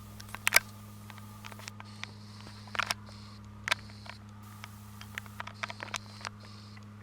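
A scatter of sharp clicks and taps over a steady low hum.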